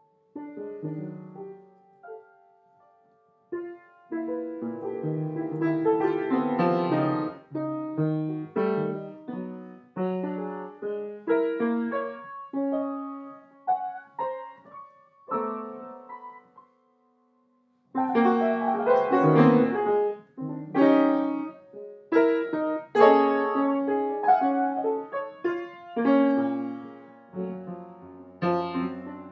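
Solo piano music: separate notes and chords, each dying away after it is struck. It stops for about a second and a half near the middle, then carries on.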